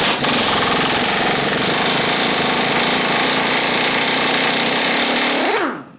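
Impact wrench hammering continuously on a steel bolt threaded into steel on an NP208 transfer case, driving it loose. Near the end the trigger is released and the motor winds down with a falling whine.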